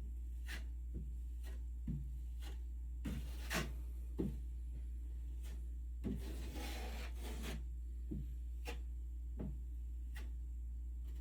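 Drywall knife scraping joint compound across a ceiling seam in short strokes, with one longer drawn-out pass partway through, over a steady low hum.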